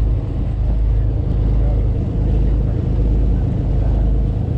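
A sportfishing boat's engine running, a steady low drone with the rush of the hull through the water.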